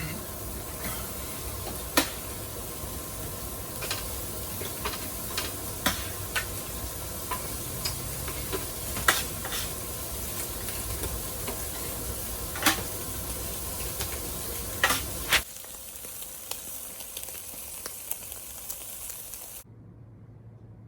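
Lamb sizzling on a barbecue grill, a steady hiss with scattered crackling pops of spitting fat. The sizzle drops quieter about three-quarters of the way through and dies away near the end.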